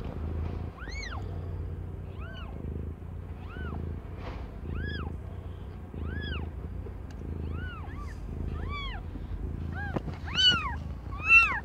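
Newborn kitten mewing: a string of short, high-pitched cries that rise and fall, about one a second, with the two loudest near the end.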